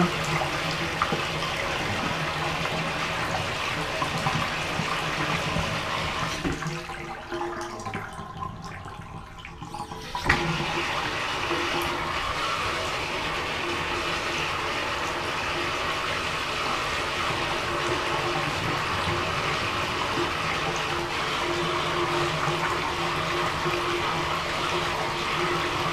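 Bathtub spout running into a tub that is draining freely, a steady rush of water. It goes quieter for a few seconds about seven seconds in, then comes back with a click. The drain keeps up with the running tap, a sign that the clog is cleared.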